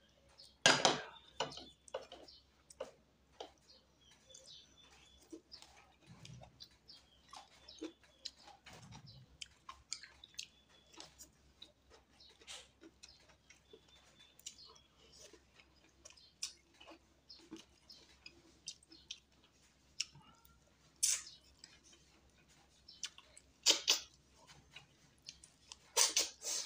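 A person chewing and smacking their lips while eating fish sinigang with rice by hand: many short wet clicks and smacks, with a few louder ones about a second in and in the last few seconds.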